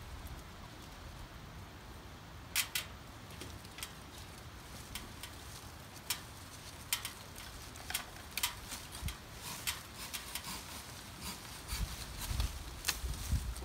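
Irregular sharp snaps and clicks of cut branches and twigs being handled, with a low rumble near the end.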